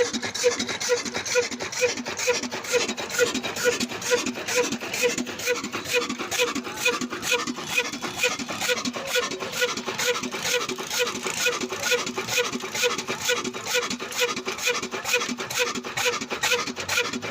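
Old black diesel engine running at a slow, steady beat of about two to three strokes a second.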